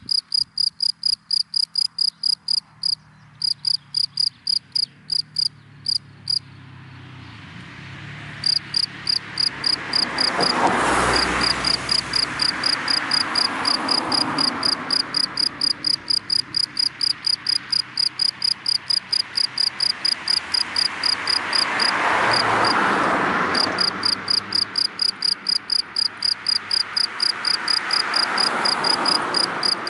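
A cricket chirping in a steady rhythm of about four chirps a second, breaking off briefly twice in the first third. Cars pass by three times, their tyre and engine noise swelling up and fading away under the chirping.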